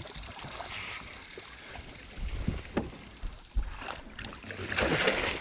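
Hooked northern snakehead thrashing and splashing at the water's surface beside a boat, with the biggest splash near the end. Wind rumble on the microphone and a few dull knocks run underneath.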